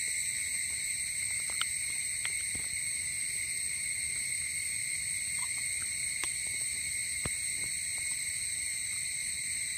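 Steady, high-pitched drone of an insect chorus, even and unbroken, with a few faint scattered ticks.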